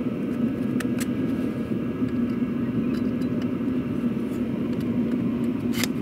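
Diesel heater exhaust running out through several small silencers daisy-chained together: a steady drone with a low hum. A few light clicks about a second in and a sharper one near the end as the silencers are handled.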